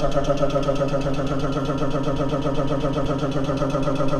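A loud, steady electrical buzz made of several tones at once, with a fast even flutter running through it.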